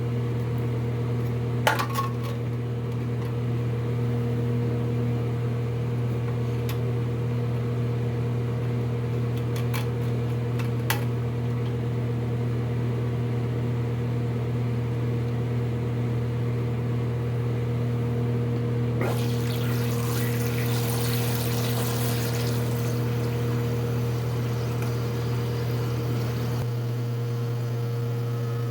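Steady hum of a noisy fan, with a few light clicks and knocks early on. About two-thirds of the way through comes several seconds of water hissing and pouring.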